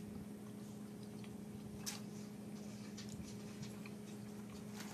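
Faint chewing with scattered small clicks, the clearest about two seconds in, over a steady electrical hum.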